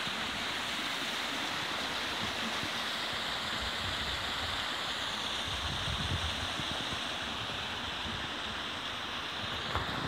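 Steady rush of a shallow stream running over bare rock slabs and spilling down a small rock waterfall at low flow.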